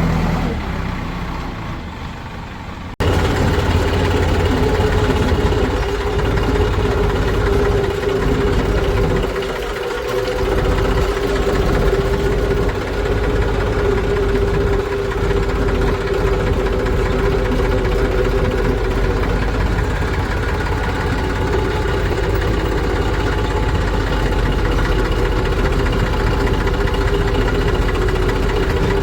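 Heavy diesel engine running steadily, a continuous low drone with a strong hum; the sound breaks off sharply about three seconds in and resumes louder.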